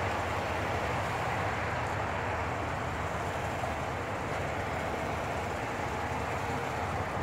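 Ford 3.5-litre twin-turbo EcoBoost V6 idling steadily under the open hood, very quiet.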